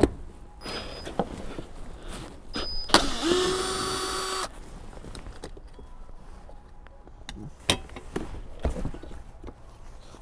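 Cordless drill running for about a second and a half as it backs out a bolt, its motor pitch rising briefly and then holding steady. Sharp clicks and knocks come before and after it, with a louder knock near the end.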